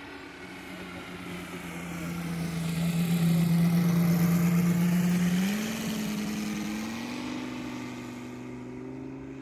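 NGH GF 150 model-aircraft petrol engine running in flight, turning a 32x10 two-blade propeller as the 1/3-scale Sopwith Pup biplane makes a low pass. The engine grows loudest as the plane comes close overhead, then its note steps up in pitch twice as the throttle is opened and the plane draws away.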